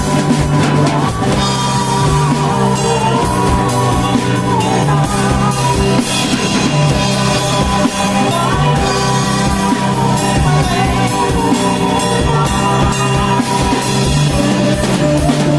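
A rock band playing live, with drum kit, electric guitars and bass and a sung vocal line.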